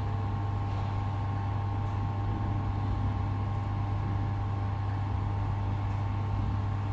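Steady hum of running machinery: a low drone with a few faint steady higher tones above it, unchanging throughout.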